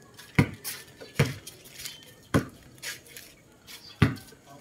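A series of sharp, irregular knocks and clinks of hard objects striking each other, about six in four and a half seconds, the loudest near the end.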